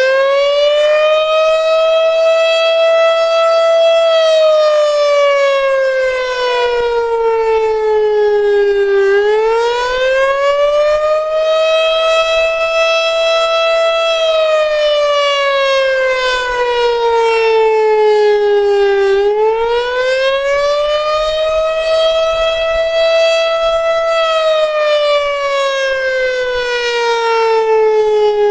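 Federal Signal STH-10 electromechanical warning siren sounding the attack signal: a wail that rises for about four seconds, holds briefly, then falls for about five, repeating about every ten seconds. Very loud.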